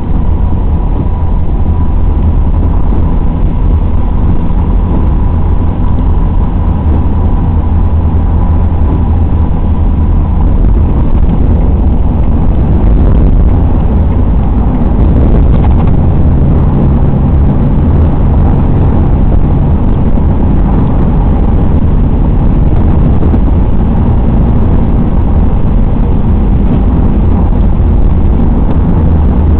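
Steady road and engine rumble inside a Dodge Ram pickup's cab at freeway speed, with tyres running on wet pavement. A faint steady high tone sits under the rumble for the first third, then fades.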